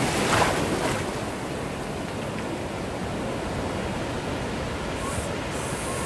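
Ocean surf on a beach: a wave breaks about half a second in, then a steady wash of water.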